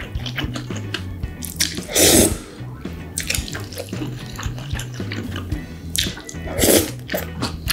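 Person slurping cold spicy kimchi noodles twice, about two seconds in and again near the end, with wet chewing and mouth clicks in between.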